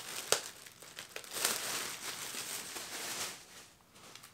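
Clear plastic bag crinkling and rustling as a folded t-shirt is pulled out of it, with a few sharp crackles; it dies away near the end.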